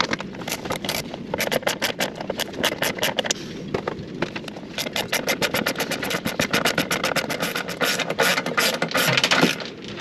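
Ratchet wrench clicking in quick runs of several clicks a second as the mounting bolts of an old diesel fuel pre-filter are undone, with a brief pause about four seconds in.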